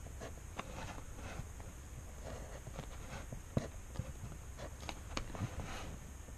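Pen scratching short strokes on paper along a plastic ruler, with irregular light clicks and taps, over a low steady hum.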